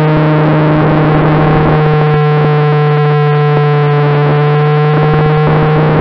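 Background music: sustained held tones over a steady low drone, the chord changing about a second in and again near the end.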